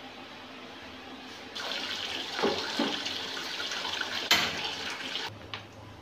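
A metal wok set down on a gas stove with a couple of knocks, then one sharp click of the burner's igniter as the gas is lit, over a steady rushing hiss that starts and stops abruptly.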